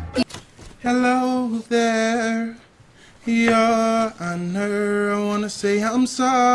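A man's voice singing long, steadily held notes, phrase after phrase, with short breaks between them.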